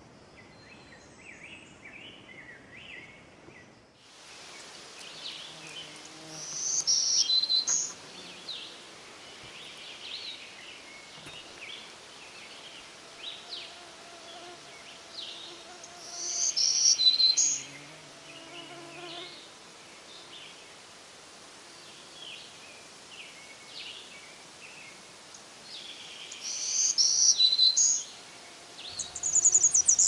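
Magnolia warbler singing its short, high, sweet song three times, about ten seconds apart, over faint calls of other birds. Near the end a different high, buzzy song starts, from a golden-winged warbler.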